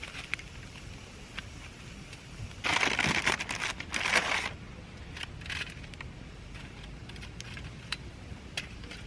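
A burst of crunching and crinkling lasting about two seconds, starting near three seconds in, with scattered small clicks and taps before and after it.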